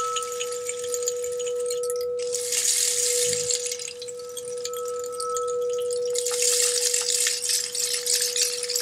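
Frosted crystal singing bowl ringing a steady, pure tone, with a fainter higher overtone in parts. A rain stick is turned over twice, about two seconds in and again about six seconds in, its beads trickling down in a rushing, crackling patter over the bowl's tone.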